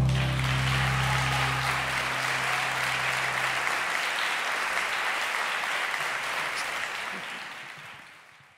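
Audience applauding as the song ends, with the last low note of the music dying away during the first few seconds; the applause fades out near the end.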